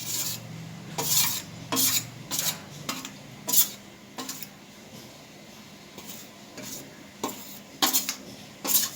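A spoon clinking and scraping against a cooking pot in about nine short, irregular strikes, as turmeric, pepper and cumin powders are spooned into the heating herbal water.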